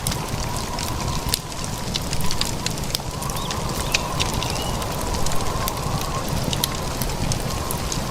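Blizzard wind buffeting the microphone in a steady low rumble, with many sharp crackling ticks and a faint wavering whistle throughout.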